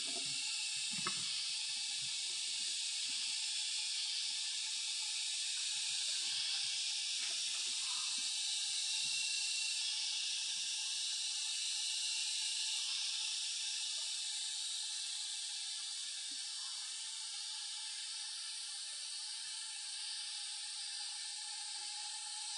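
Steady, even high-pitched drone of forest insects filling the background, with a few soft low knocks of movement in the first seconds and again near the middle.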